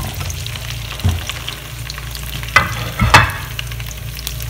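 Okra pieces sizzling in hot oil in a frying pan as a spatula stirs them, with a few knocks and scrapes of the spatula against the pan, the loudest a little after two and three seconds in.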